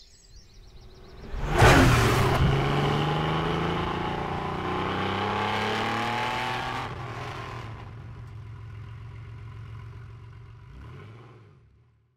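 Car engine starting with a sudden loud burst about a second and a half in, then running with a slowly rising pitch. It drops back to a lower, steady idle that fades out near the end.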